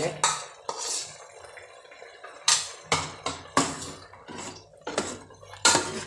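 A metal spoon scraping and clinking against a bowl and a metal cooking pot as thick leaf paste is scraped in and stirred, with about six sharp knocks at irregular intervals.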